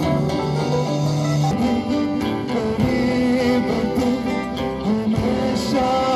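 Live band playing through a loud outdoor PA, guitar to the fore, with a male singer at the microphone.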